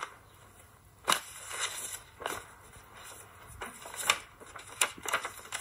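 Paper rustling and crinkling in several short bursts as an envelope is opened and handled.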